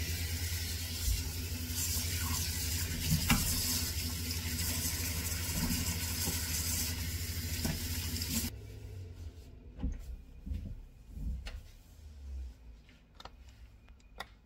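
Kitchen mixer tap running into a stainless steel sink, shutting off suddenly about eight and a half seconds in. Then there are scattered light knocks and rubbing as a cloth wipes the sink bowl.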